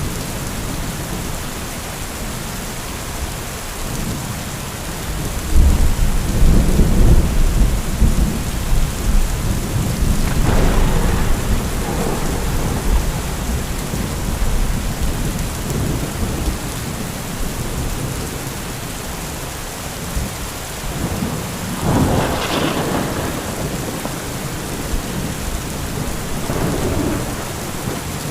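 Heavy, steady rain with thunder. A deep rumble of thunder sets in suddenly about five seconds in and rolls on for several seconds, with crackling peals following. A sharper crack of thunder comes later, and a weaker rumble near the end.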